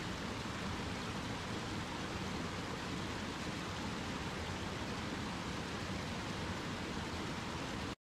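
Small waterfalls of a rocky forest stream: a steady rush of falling and splashing water that stops abruptly at the very end.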